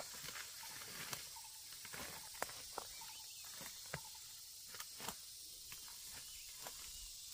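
Leaves and stems rustling and crackling as someone pushes through dense undergrowth on foot, with scattered sharp snaps of twigs and footsteps, over a steady high hiss.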